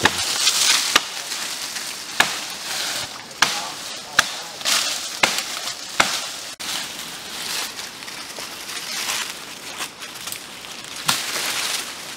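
Machete chopping through dry brush and branches: a series of sharp strikes, most in the first half and one near the end. Between them is the crackle and rustle of dry leaves and twigs being pushed aside.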